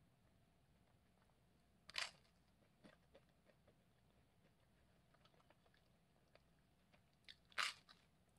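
Biting into crisp toast: two loud crunches, about two seconds in and near the end, with a few faint chewing clicks between.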